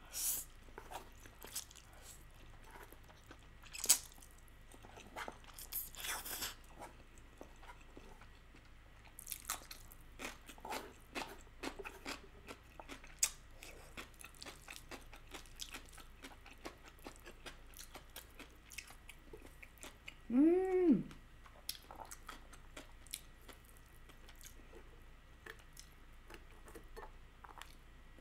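Close-miked eating of spicy stir-fried instant noodles: soft slurps, chewing and small clicks, coming in scattered short bursts with quiet gaps. A brief hum of the voice, rising then falling, comes about twenty seconds in.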